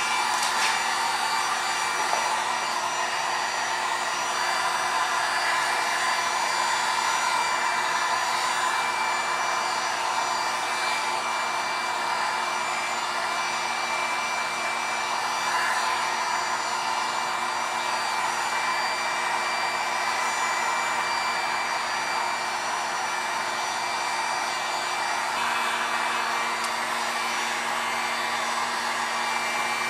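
Electric heat gun blowing steadily, a continuous rushing hiss with a thin steady whine, as it heats vinyl wrap on a car wheel to soften it.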